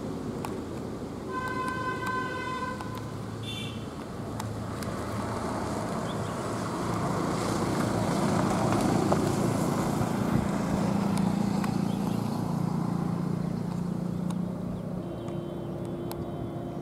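Heavy diesel trucks running as they pass on a wet hill road, the engine drone swelling to its loudest midway. A vehicle horn sounds for about a second and a half near the start, followed by a short high beep.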